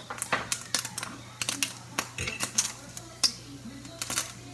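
Bacon frying in a pan, the hot grease crackling with many irregular quick pops.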